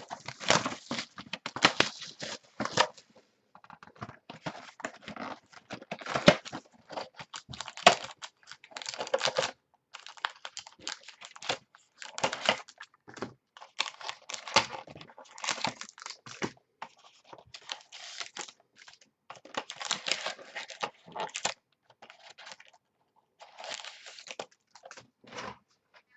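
Packaging of a sealed trading card box being torn open and crinkled: irregular bursts of ripping and rustling of wrap and cardboard, with short pauses between them.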